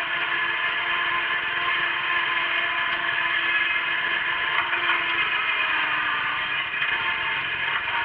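Wheel Horse garden tractor's engine running steadily under the load of pulling a moldboard plow through soil, with a steady hum.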